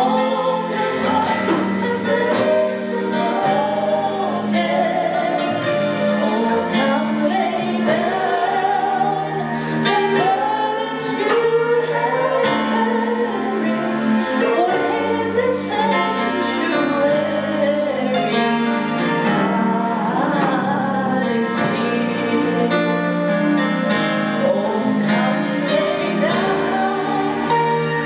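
A woman singing a gospel song into a microphone, backed by a live band with keyboard and bass guitar, amplified through the PA.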